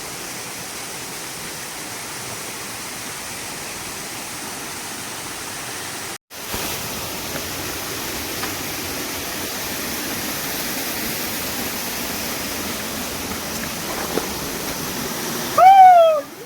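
Waterfall rushing, a steady even noise of falling water that drops out briefly about six seconds in and returns slightly louder. Near the end a person gives one short, loud, falling shout.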